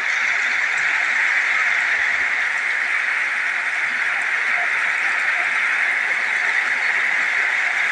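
Heavy monsoon downpour falling steadily on a paved road and puddled water: a dense, even hiss of rain with no let-up.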